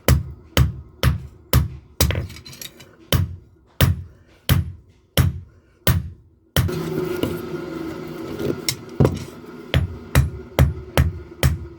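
Blacksmith's hammer striking leaf-spring steel on an anvil while forging a knife, in regular ringing blows about two a second. About six and a half seconds in the sound cuts abruptly to a steady noisy hum, and faster blows, about three a second, start again near the end.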